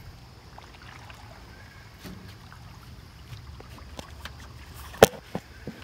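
Hooked fish splashing at the pond surface as it is reeled toward the dock, with light clicks and one sharp knock about five seconds in.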